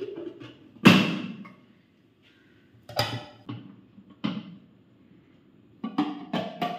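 Hard plastic knocks and clicks of a food processor jar's lid being fitted and handled: one sharp knock about a second in, two more a few seconds later, and a quick run of clicks near the end.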